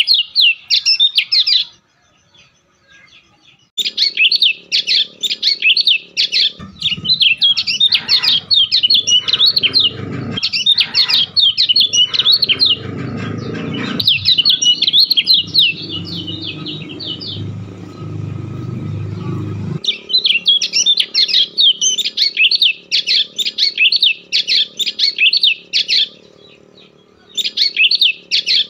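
A bird chirping in quick, continuous strings of high notes, with a short pause about two seconds in. From about seven seconds in to about twenty, a low rumbling noise runs underneath and then stops suddenly.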